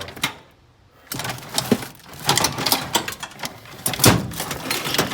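Rummaging through parts: a run of irregular clatters, clicks and knocks, with one sharp knock about four seconds in.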